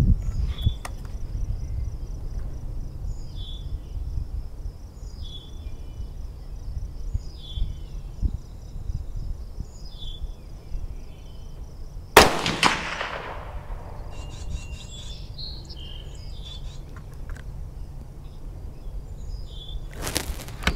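.22 Magnum bolt-action rifle fired once about twelve seconds in: a sharp crack with a short echo trailing off. Wind rumbles on the microphone throughout, a faint high chirp repeats every second or two in the background, and a short burst of noise comes just before the end.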